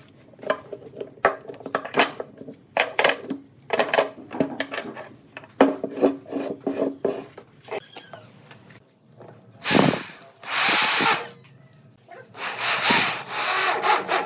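Hand work on wood: a string of knocks and scrapes for several seconds, then a power tool working the wood in two loud bursts of about a second and a half each, the second near the end.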